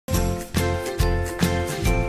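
Electronic intro music with a steady beat of about two beats a second, a heavy bass and a bright tinkling melody, starting abruptly at the very beginning.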